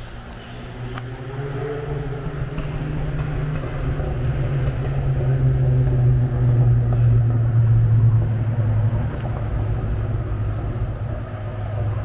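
A motor vehicle driving past, its low engine and road hum growing louder to a peak a little past the middle and then fading.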